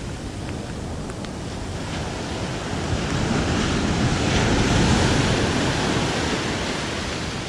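Ocean surf breaking and washing up the sand, swelling to a peak about halfway through and then easing, with wind buffeting the microphone.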